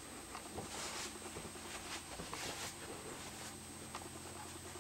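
Quiet cabin room tone: a low steady hum with faint, scattered ticks.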